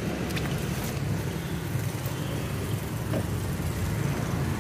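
Car engine running, heard from inside the cabin: a steady low rumble.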